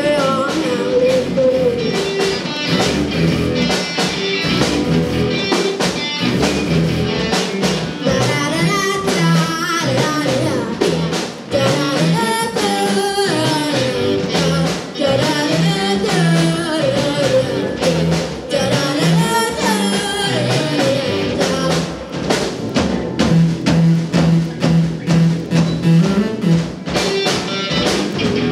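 Live rock band playing, with a female lead singer over electric guitars, bass and a drum kit.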